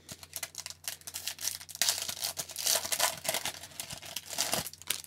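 Foil hockey card pack wrapper crinkling and tearing as it is ripped open and the cards are slid out, with the loudest crinkling from about two seconds in until near the end.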